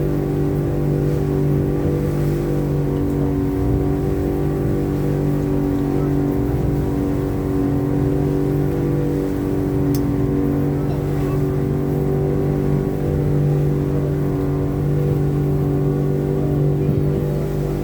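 Boat engine running steadily at a constant pitch while under way.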